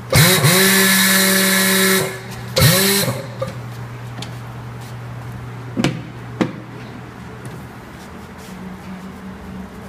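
A motor whirs up to speed and runs steadily for about two seconds, then whirs up again briefly; two sharp clicks follow a few seconds later over a steady low hum.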